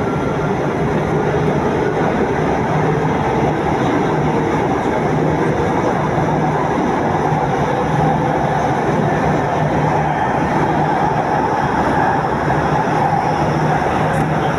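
Istanbul M3 line metro train running at speed, with a steady, loud rumble of wheels and running gear and a constant low hum.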